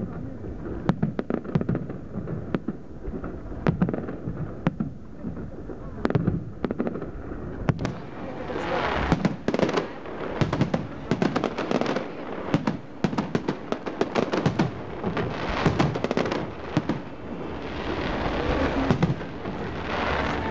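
Aerial fireworks display: sharp bangs of shells bursting overhead, growing from about eight seconds in into dense, rapid crackling.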